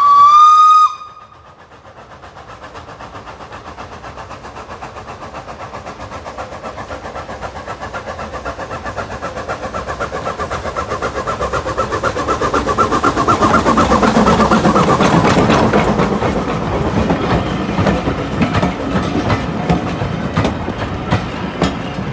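Industrial steam tank locomotive gives one short whistle blast, rising slightly in pitch, then works hard toward and past on a climbing line. Its exhaust beats build steadily louder, peak about two-thirds of the way through, and ease off, with sharp clicks from the wheels over the rails near the end.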